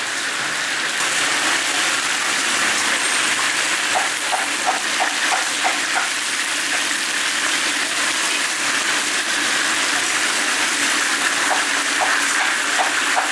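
Hot oil sizzling steadily in a deep fryer, with two short runs of quick light ticks partway through.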